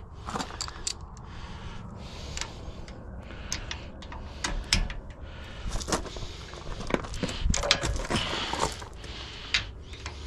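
Irregular metallic clicks and knocks of a socket wrench on a lengthened breaker bar being worked against a stubborn, possibly rusted bolt.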